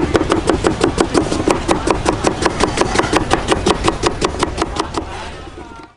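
Cleaver chopping a young green mango into thin slices on a wooden cutting board: rapid, even knocks of the blade on the board at about six strokes a second, fading out about five seconds in.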